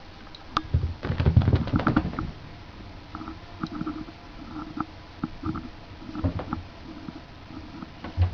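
Cats' paws thudding and scrabbling on the floor as they pounce: a flurry of soft low thumps in the first two seconds, then scattered light taps and one more thump near the end.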